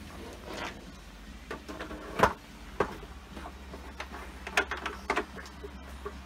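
Hard plastic and stainless steel parts of a volumetric depositor knocking and clunking as the hopper and filler unit are handled and seated on the machine: a run of separate sharp knocks, the loudest about two seconds in and a quick cluster near the end. A low steady hum runs underneath.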